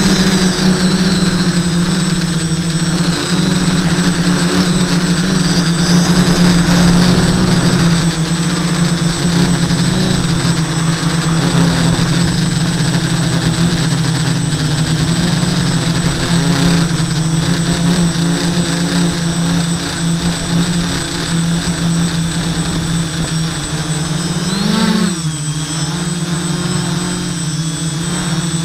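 An SK450 Deadcat quadcopter's Sunnysky 980kv brushless motors and propellers buzz steadily in flight, heard close up from a camera mounted on the craft. About 25 seconds in, the pitch briefly rises and drops back as the motors speed up.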